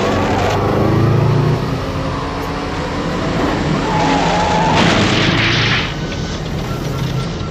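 Cartoon car-chase sound effects: car engines running under music, with a loud crash about five seconds in as a car smashes through a bridge railing.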